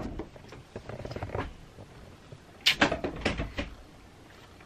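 A few sharp knocks and clatters, bunched together about three seconds in, over faint rustling.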